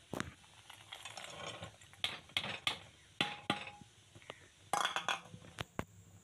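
Metal spoon stirring thickening milk in an aluminium pot, scraping and clinking against the pot in an irregular string of clicks and scrapes, busiest a couple of seconds in and again near the end.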